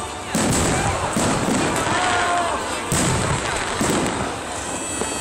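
New Year fireworks going off: several sudden bangs, one about a third of a second in and others near three and four seconds, each followed by a spread of crackle, with voices of onlookers underneath.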